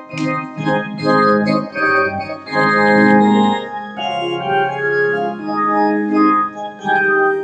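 Organ playing a hymn for congregational singing in sustained chords that change every second or so.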